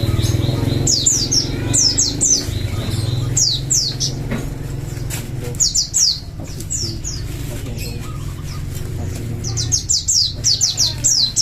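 White-eyes (pleci) singing in bursts of quick, high, down-slurred notes, ending in a fast run of notes, over a steady low hum.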